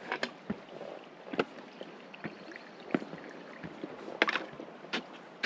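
Footsteps crunching in spring snow, an irregular step about once a second.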